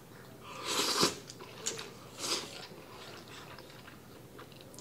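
A person slurping jajangmyeon (black bean noodles) into the mouth with a hissing suck about a second in, then a shorter second slurp about a second later, with wet chewing and small mouth clicks between.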